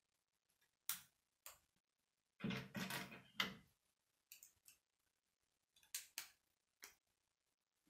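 Plastic K'nex pieces clicking as they are handled and snapped together: scattered sharp clicks, with a denser rattling clatter lasting about a second a little before the middle.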